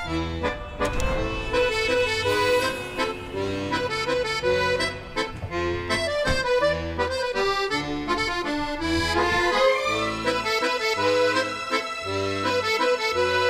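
Instrumental film-score music: a melody of sustained notes over a low bass note repeating about once a second.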